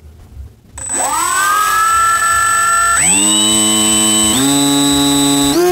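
Electric motor and pusher propeller of a HobbyKing Bixler 2 RC plane starting up about a second in. Its whine glides up in pitch, then steps up to a higher steady speed three times as the throttle is raised by command. A thin steady high tone runs alongside.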